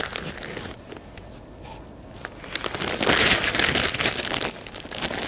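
Plastic bag of rice being handled, crinkling and crackling irregularly, loudest in a longer stretch a little after the midpoint.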